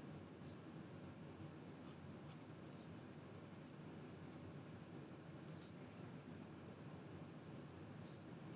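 Penbbs 500 fountain pen nib writing on lined paper: a faint scratch of the nib, with a few brief, sharper strokes here and there.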